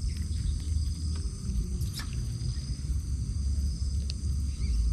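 Night insects trilling steadily at high pitch over a loud, uneven low rumble on the microphone, with a sharp click about two seconds in and another near four seconds.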